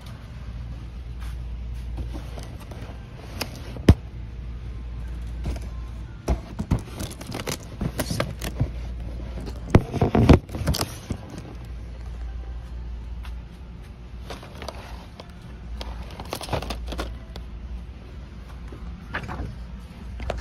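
Handling noise on a phone's microphone: scattered knocks and rubbing over a steady low rumble, busiest around the middle with the loudest cluster about ten seconds in.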